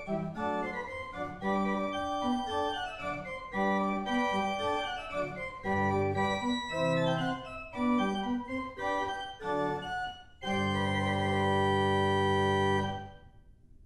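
Pipe organ playing a run of short, moving notes, then a held closing chord that is released about thirteen seconds in and dies away in the room's reverberation.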